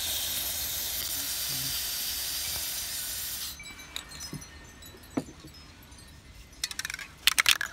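Aerosol spray-paint can spraying a steady hiss of blue paint onto the water's surface for about three and a half seconds, then stopping. Near the end comes a short burst of sharp clicks.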